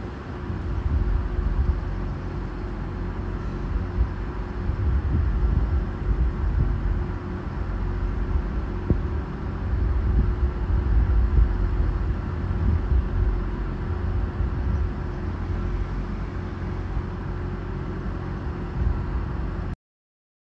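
Renfe series 446 electric commuter train moving away along the station tracks: a steady low rumble with a faint steady hum over it. The sound cuts off abruptly near the end.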